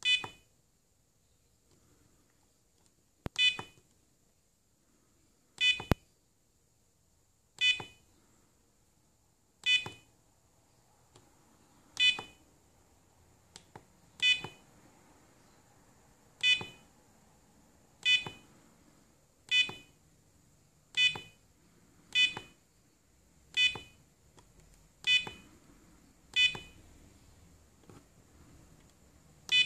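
Digital LED cube alarm clock giving a short electronic beep at each button press as its settings menu is stepped through: about sixteen beeps, a couple of seconds apart at first and coming about every second and a half later on.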